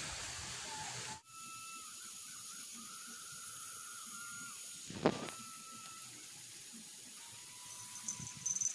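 Steady outdoor riverbank ambience: an even hiss with a high, thin steady whine and faint wavering whistles. The background changes abruptly about a second in at an edit. A single sharp knock comes about five seconds in, and a few soft clicks come near the end.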